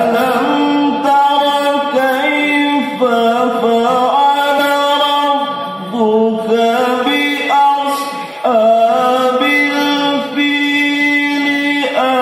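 A man reciting the Qur'an in the melodic tilawah style, holding long ornamented notes in one unbroken line, with short breaks about six and eight seconds in.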